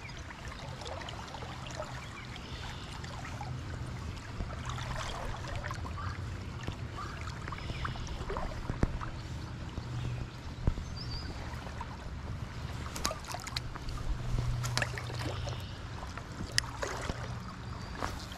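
Shallow creek water flowing and sloshing, over a steady low rumble, with scattered light clicks and knocks.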